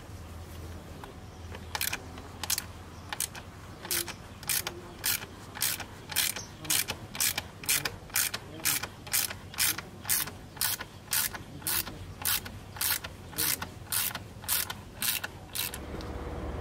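Hand ratchet wrench worked back and forth, giving a short burst of ratchet clicks on each stroke at an even pace of nearly two strokes a second. The clicking stops shortly before the end.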